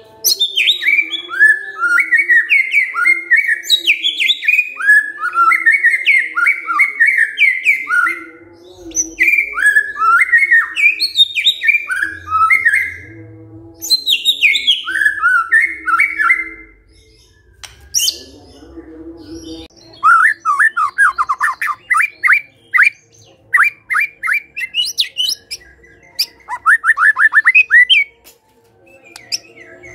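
White-rumped shama singing loudly in bursts of rich, fast whistled phrases separated by short pauses. From about two-thirds of the way through, the phrases become rapid runs of quick sweeping notes.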